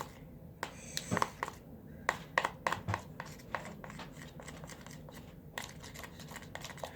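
Hand-soap slime, chilled in the freezer, being worked and mixed in a bowl: a run of irregular soft clicks, taps and squishes.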